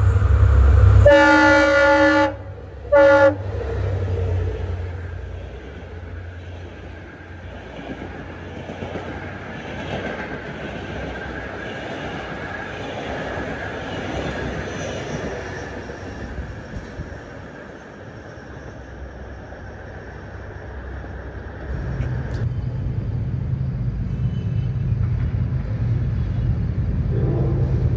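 Diesel locomotive horn: a long blast about a second in, then a short second blast, followed by the rumble and rattle of the passenger train running past. Near the end a second diesel locomotive's low engine drone comes in as it approaches, and its horn starts sounding just before the end.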